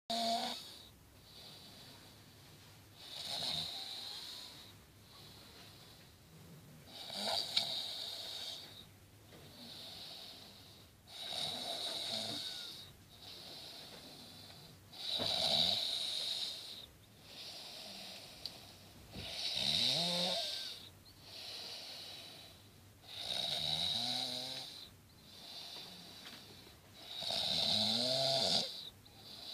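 A person snoring heavily from exhaustion: a loud snore about every four seconds, eight in all, with quieter breathing between; several of the later snores carry a wavering pitched note.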